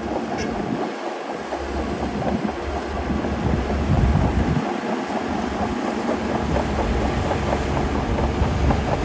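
Shantui DH17C2 crawler bulldozer's diesel engine running under load, with a fast, steady clatter of its steel tracks. The low rumble swells about four seconds in and again near the end.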